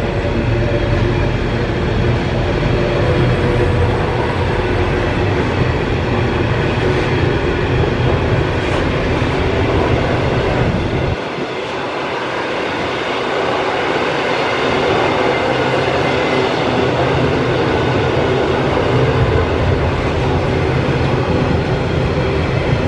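Container wagons of a long freight train rolling past close by: a loud, steady rumble and rattle of wheels on rail, with a faint steady whine. The low rumble drops away suddenly about halfway through, then builds back up.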